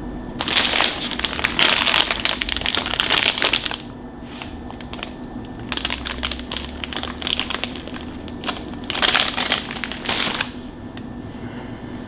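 Crinkly packaging being handled and crumpled in three bouts, the first the longest and loudest, over a faint steady hum.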